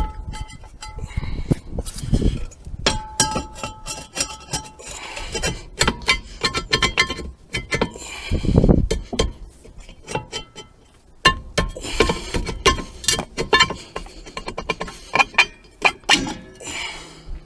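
Steel car parts and tools clinking, knocking and scraping as the rear brake drum is handled and fitted back over the new hub, with some knocks ringing briefly.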